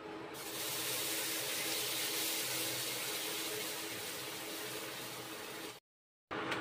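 Butter melting and sizzling in a stainless steel pan on an induction cooktop: a steady hiss over the cooktop's even hum. The sound cuts out for about half a second near the end.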